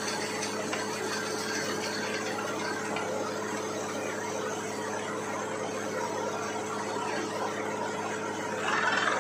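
Borewell drilling rig running steadily with a constant low hum, and a louder rushing noise coming in just before the end.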